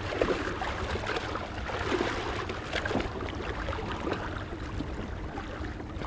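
Water sloshing and splashing at the surface, with irregular small splashes, over the steady low hum of the boat's engine idling.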